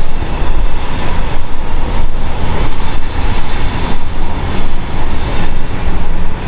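Loud, steady rumble of wind buffeting the microphone while walking, with faint footsteps on a gritty concrete floor.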